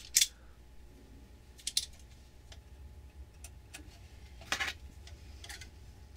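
Needle-nose pliers and solid hookup wire handled against a metal amplifier chassis: a handful of sharp clicks and light clinks, the loudest right at the start and a pair about two thirds of the way through, over a faint steady low hum.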